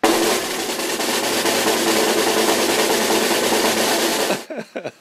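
Snare drum roll sound effect: a dense, rapid rattle that starts abruptly and stops after about four and a half seconds.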